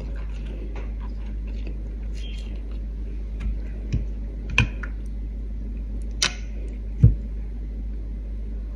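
Scattered light clicks and knocks of a spoon and fingers picking cooked fish off a plate and onto a lettuce leaf, over a steady low hum. A dull knock about seven seconds in is the loudest.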